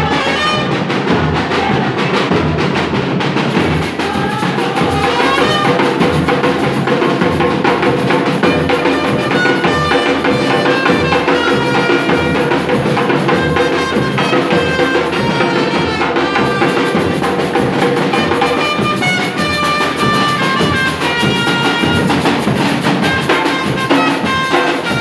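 Batucada samba drumming: a percussion ensemble playing a dense, steady rhythm, with a melody of short held notes over it.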